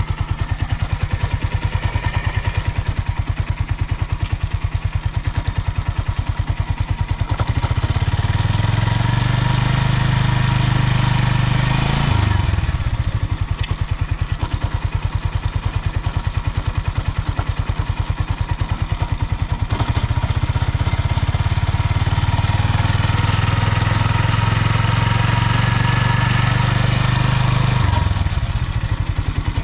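Suzuki Volty's 250 cc single-cylinder four-stroke engine idling, then revved up and held for about four seconds before dropping back to idle. About halfway through it is revved and held again for about eight seconds, then falls back to idle. The seller calls it very quiet, with no abnormal noises.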